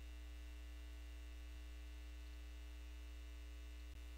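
Steady electrical mains hum with a ladder of overtones, a constant background buzz under the recording; a tiny click near the end.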